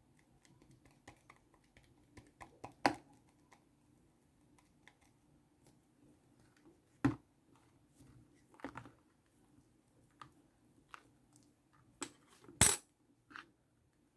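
Shaving-foam slime being pressed and mixed by hand: scattered sticky clicks and small pops, with three louder snaps, about three seconds in, about halfway, and near the end.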